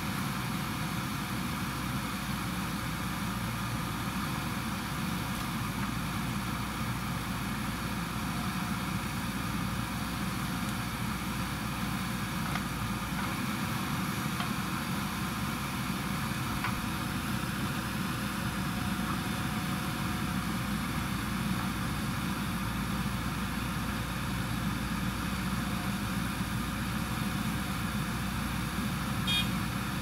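JCB backhoe loader's diesel engine running steadily under load as the rear bucket digs soil and swings it up to a dump truck. A short sharp sound comes near the end.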